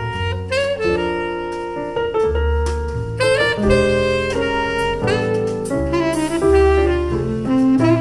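Instrumental jazz music, a sustained melodic lead over bass notes, played back through Vandersteen Model 1Ci floor-standing speakers and heard in the room.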